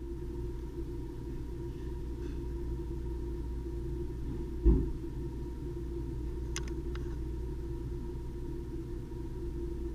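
Steady low hum of an ear microsuction machine running during wax removal, with a single thump about halfway through and a couple of faint clicks soon after.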